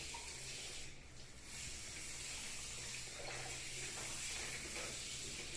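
Water running from a tap and splashing, the rinse of a soaped puppy during its bath; the flow eases briefly about a second in.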